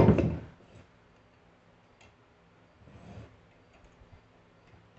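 A sharp knock of steel parts on the workbench, then a few faint light clicks as a tight pin is worked through a steel hitch receiver bar.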